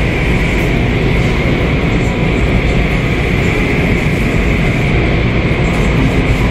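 Automated tunnel car wash running: a steady rushing rumble of its rotating brushes and water spray, with no breaks or changes.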